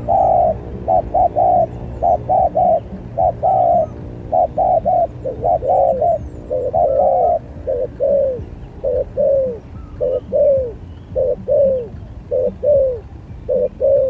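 Spotted doves cooing: a fast, steady run of short coos in twos and threes, the last note of each group falling in pitch.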